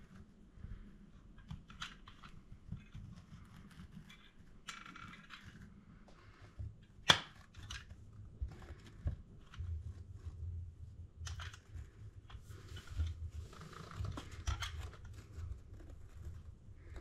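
Caulking gun squeezing glet filler compound out of a refilled silicone tube into the joints between bricks: scattered quiet clicks of the trigger and plunger and rustling handling noise, with one sharp click about seven seconds in.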